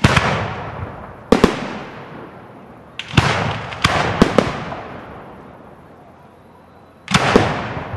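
Aerial firework shells bursting in a display. Sharp bangs come in groups: one at the start, two just after a second, a cluster between about three and four and a half seconds, and two more near the end. Each bang is followed by a long rolling echo that fades away.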